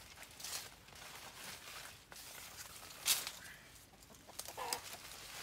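Leaves and twigs of a wax apple tree rustling as a man climbs and picks fruit in it, with one sharp crack a little past halfway. A short animal call is heard near the end.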